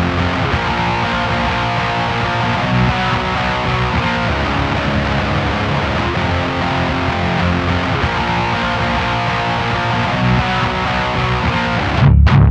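Clean electric guitar, an Ibanez SZ with a DiMarzio Tone Zone pickup, played through a Diezel VH4 valve amp's clean channel with an RCA black-plate 12AX7 preamp tube and GT-EL34M power tubes, strumming and picking chords. Near the end the playing turns louder and stop-start.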